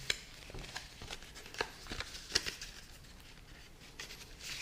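Scattered light clicks and taps with faint rustling of cardboard and paper as items are lifted out of a smartphone's retail box, busiest in the first two and a half seconds.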